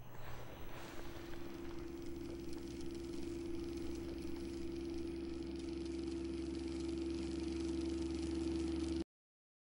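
A steady low drone with a held tone, a deeper hum and hiss, slowly swelling and then cutting off abruptly near the end.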